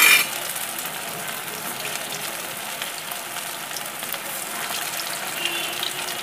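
Potato-and-paneer kofta balls deep-frying in hot oil in a non-stick pan, giving a steady bubbling sizzle, with a brief louder burst right at the start.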